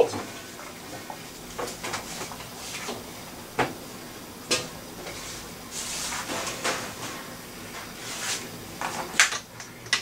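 Scattered light clicks and knocks of small objects being handled, over a faint steady hiss.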